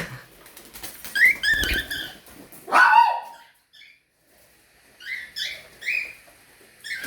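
Pet parrots calling: a run of short chirps about a second in, a louder call that falls in pitch around three seconds, then three short chirps near the end.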